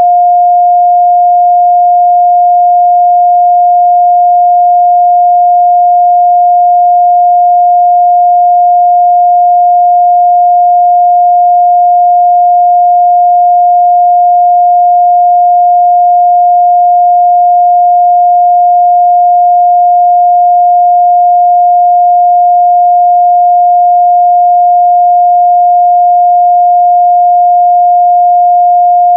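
A steady, loud 708 Hz pure sine-wave test tone, one constant pitch with no change.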